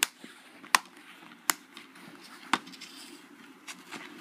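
A plastic Blu-ray case and its cardboard slipcover being handled: four sharp clicks and taps of plastic, spaced under a second apart, then a few lighter ones near the end.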